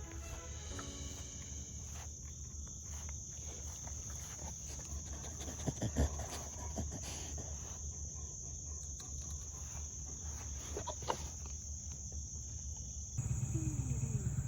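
Crickets chirping steadily over a low hum, with a few sharp knocks about six seconds in and again around eleven seconds. Near the end a louder low rumble comes in.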